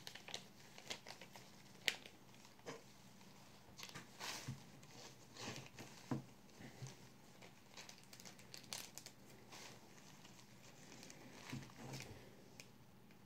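Faint, scattered crinkling and small clicks of a plastic packet of antibiotic disks being handled with gloved hands and tweezers.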